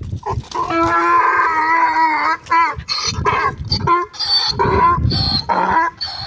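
Donkey braying: one long drawn-out call, then a run of short alternating calls about twice a second.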